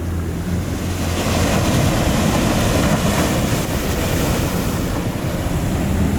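Ocean surf breaking with wind on the microphone, the wash swelling about a second in, over a steady low hum.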